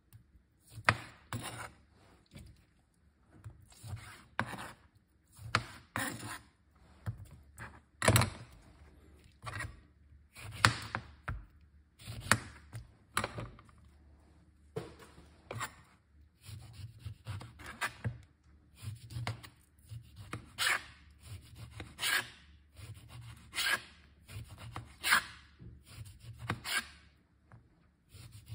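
Chef's knife cutting the peel off an orange on a plastic cutting board: a long run of short, irregular cuts and knocks, about one or two a second, some in quick pairs.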